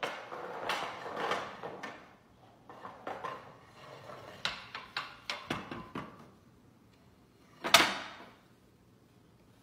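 Scattered light knocks and rustling as a toddler handles a blanket and a small toy on a hardwood floor, then one louder knock about eight seconds in.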